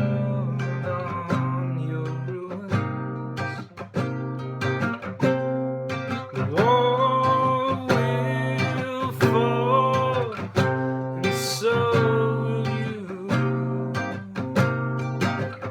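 Acoustic guitar strummed through an instrumental break in a folk song. A lead melody slides between notes over the chords in the middle of the passage.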